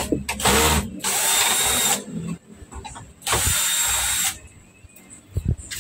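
Cordless drill-driver backing out the screws of a monitor's plastic back cover, running in three bursts of about a second each. A couple of low knocks near the end.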